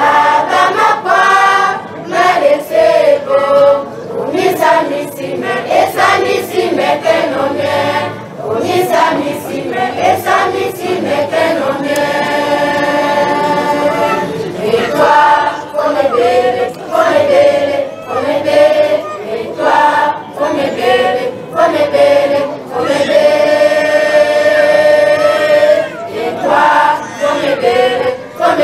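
A group of women and children singing together as a choir, with long held notes about twelve seconds in and again about twenty-three seconds in.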